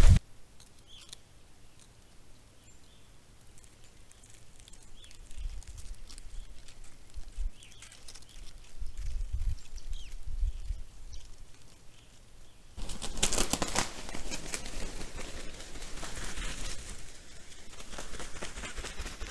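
Wild turkeys moving about in snow: a faint low rumble, then about 13 seconds in a rustling, crackling noise starts suddenly and carries on unevenly.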